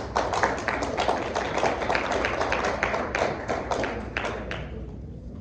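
Audience applauding, a dense patter of hand claps that dies away about four and a half seconds in.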